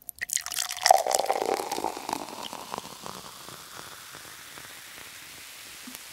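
Beer fizzing in a glass: a dense crackle of popping bubbles, loudest about a second in, that dies down over a few seconds into a steady hiss.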